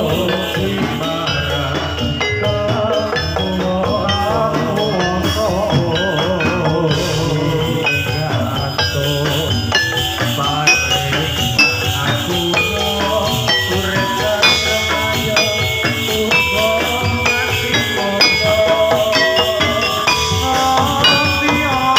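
Live Javanese gamelan music accompanying a jathilan horse dance: many struck metallophone notes ringing over drumming, with a wavering melodic line in the first few seconds.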